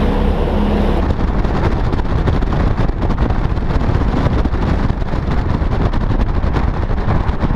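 Bass boat running fast across open water: the outboard motor's steady noise under heavy wind rush buffeting the microphone.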